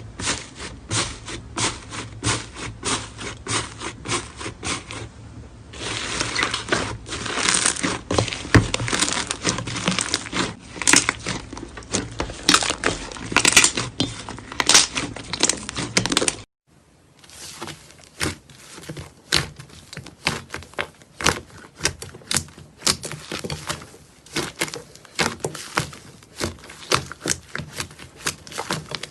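Slime being squeezed and worked by hand, a dense run of crackles and clicks. A cut about sixteen seconds in brings a second clip with sparser, sharper clicks.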